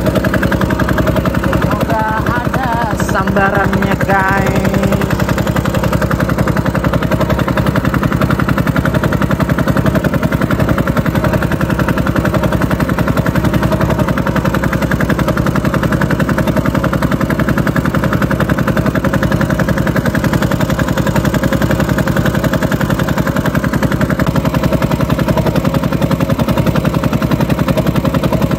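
Small boat engine running steadily with a rapid, even beat, pushing the boat along at trolling speed.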